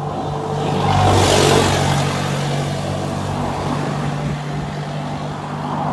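A motor vehicle passing close by: a steady engine hum under a rush of road noise that swells to a peak about a second and a half in, then eases off.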